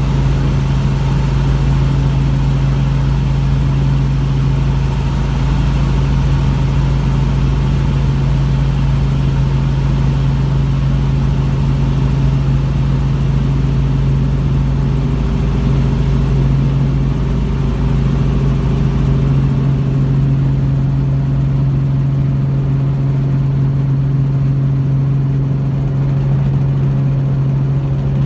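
Helicopter heard from inside the cabin: the steady drone of rotor and engine during the descent and landing approach, a constant strong hum with a deep rumble beneath it that eases about twenty seconds in.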